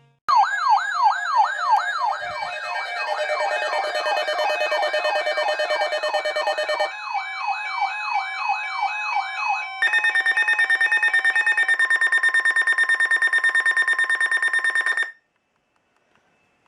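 Electronic emergency-vehicle siren in a fast yelp, its pitch sweeping up and down about three times a second, with a second yelping siren overlapping it for a few seconds. About ten seconds in it switches to a rapidly pulsing steady high tone, then cuts off suddenly.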